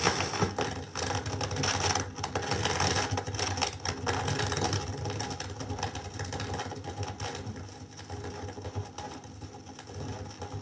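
Stylus riding the lead-in groove of a spinning vinyl record: dense crackle and sharp clicks of surface noise, loudest at first and easing off gradually.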